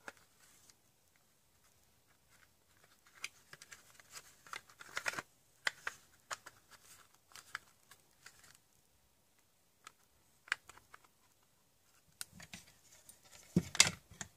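Plastic laptop-charger housing being handled and fitted back together, giving scattered light clicks and rustles. A louder knock comes near the end.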